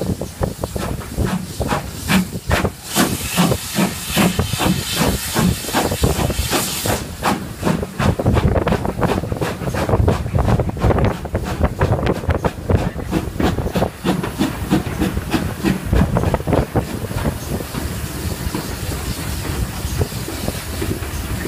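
Steam locomotive hauling a train, heard from the carriage just behind its tender: a steady run of exhaust beats, with a strong hiss of steam over the first several seconds. Later the beats grow less distinct under the running noise of the train.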